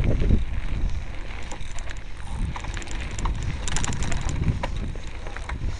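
Wind buffeting the microphone of a camera riding along a bumpy dirt track, with low rumbling and scattered rattling clicks, and a thicker burst of rattles about four seconds in.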